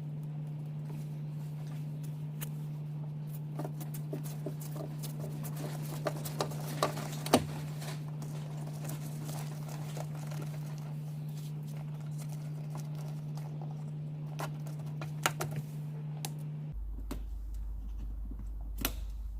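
Scattered light clicks and taps from hands handling speaker wires and small tools while wiring a car door speaker, over a steady low hum that drops lower near the end.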